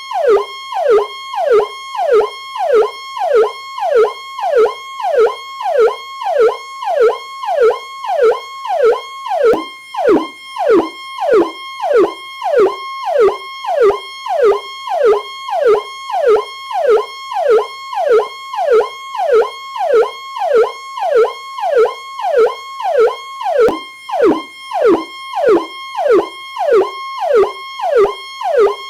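Electronic police siren sounding its Powercall tone: a high note that drops sharply in pitch at the end of each cycle, repeating about one and a half times a second.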